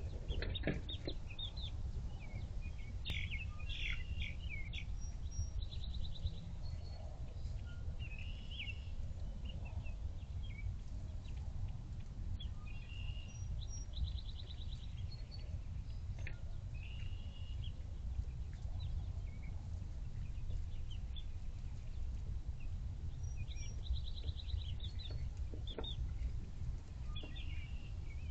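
Hens clucking and giving short calls, scattered through, over a steady low rumble.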